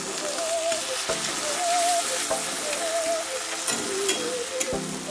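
Onions, tomatoes and ground spice pastes sizzling in hot oil in an aluminium kadai, stirred with a flat metal spatula that scrapes and knocks against the pan a few times. A wavering tune of background music plays faintly underneath.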